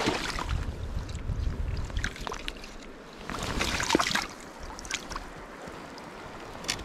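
Gusty wind rumbling on the microphone, with scattered splashes of river water and a louder rush of noise about three to four seconds in.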